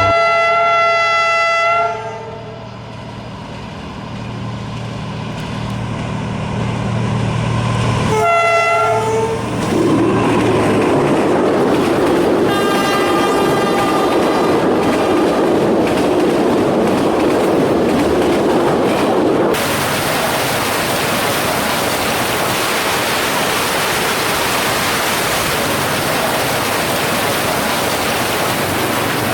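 D19E diesel-electric locomotive sounding its horn, a chord of several pitches, ending about two seconds in, then a second short blast about eight seconds in. The train then runs by with wheels clattering on the rail joints. From about twenty seconds in, a steady hiss of heavy rain fills the sound.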